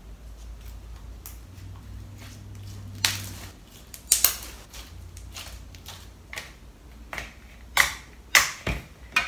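Clicky homemade slime being stretched and squeezed by hand, giving irregular sharp clicks and pops, a few of them louder snaps. Near the end it is pressed into a plastic bowl.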